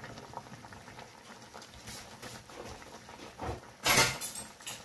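Faint, irregular crackling patter from a pot of water with whole apricots heating on the stove. A sudden loud, brief noise comes about four seconds in.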